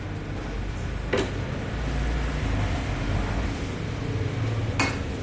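Two sharp knocks of a kitchen utensil against metal cookware, about a second in and again near the end, over a steady low background hum.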